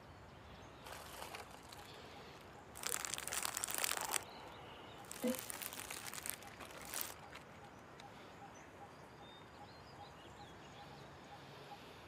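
Short bursts of rustling and crinkling as food is put into a monk's alms bowl, the loudest about three seconds in and a few more around five to seven seconds. Faint bird chirps follow.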